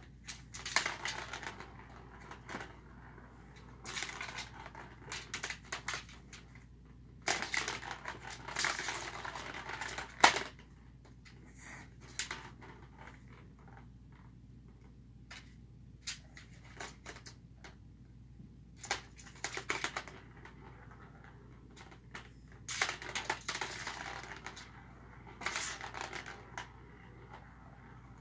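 Plastic ball-in-track cat toys clattering as a kitten bats the balls around the tracks, in bursts of rattling and clicking with quiet pauses between, and one sharp knock about ten seconds in.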